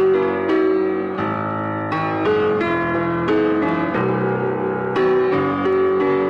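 Bechstein 6'2" grand piano being played: a run of full chords with bass notes, struck roughly every half second and ringing on between strikes.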